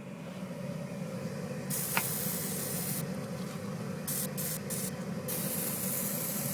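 Aerosol can of Glade spraying into the car's fresh-air intake: one long spray about two seconds in, a run of quick short squirts, then another long spray near the end. Under it the Pontiac G6's HVAC blower runs steadily on high, drawing the mist in.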